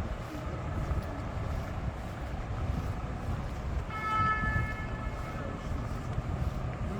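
Steady city street traffic rumble. About four seconds in, a high, pitched tone is held for about a second and a half, dipping slightly as it fades.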